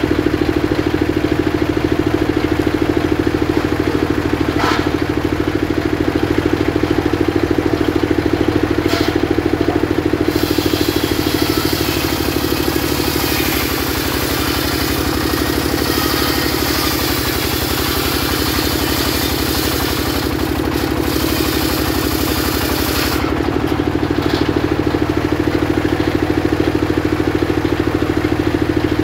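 Engine-driven circular saw of a truck-mounted mobile sawmill running steadily. From about ten seconds in until about twenty-three seconds the blade hisses as it rips lengthwise through a log, and the engine's hum drops a little under the load. Two short sharp knocks come before the cut.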